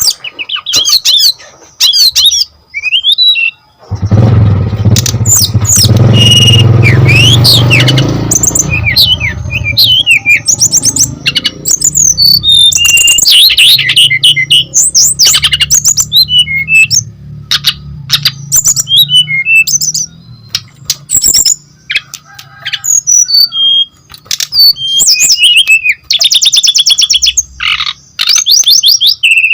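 Brown-chested jungle flycatcher singing a fast, varied song of chirps, sweeping whistles and rapid trills, with a fast rolling trill near the end. A loud low rumble sets in about four seconds in and fades to a faint low hum after about ten seconds.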